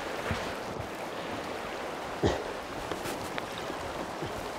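Shallow river rapid running steadily over rocks, with a few short splashes of legs in waders pushing through the water.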